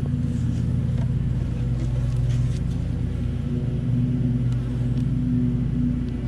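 Steady hum of many honeybees buzzing around an opened hive, one low droning pitch with its overtones.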